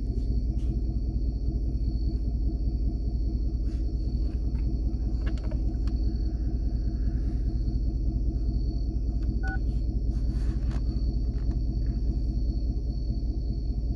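Chevrolet pickup's engine idling steadily, heard from inside the cab as an even low rumble, with a thin steady high tone above it and a few faint clicks.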